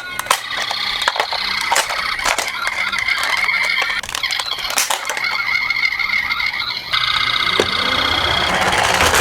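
Several toy ambulance minicars' electronic sirens sounding together and overlapping, with frequent sharp clicks and clatters of the little cars rolling down a slope. About seven seconds in, a louder siren joins in.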